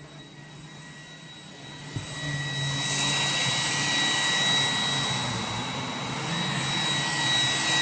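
iRobot Roomba 980 robot vacuum running, its fan giving a steady high whine over a rushing noise that grows louder about two to three seconds in.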